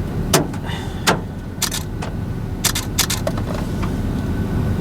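Camera shutter clicking several times, some clicks in quick pairs, over the steady low rumble of a vehicle's cabin.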